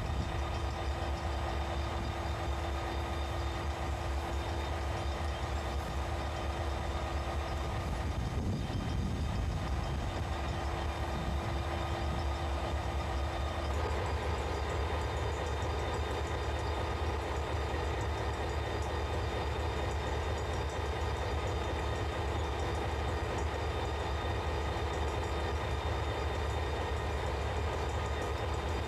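Diesel locomotive idling at a standstill: a steady low engine rumble. A faint steady hum over it drops out about halfway through.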